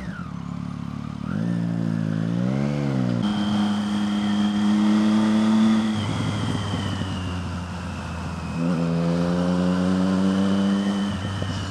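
Triumph Street Triple R's three-cylinder engine, fitted with a Scorpion Serket taper exhaust, pulling away under acceleration: it idles briefly, revs up about a second in, holds a steady pull, drops back at about six seconds, then pulls hard again near nine seconds.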